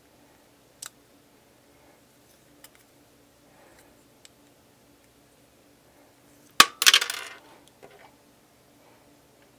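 Small plastic Mega Bloks pieces clicking against each other, then a brief clatter of loose pieces knocking on the tabletop about two-thirds of the way in.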